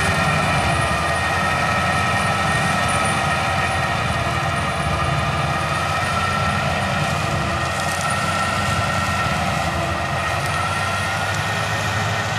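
A tractor of over 150 HP pulling an FAE CH-45 strip-tillage implement through sugarcane trash and soil, running steadily under load: a low drone with a steady, slightly wavering whine above it.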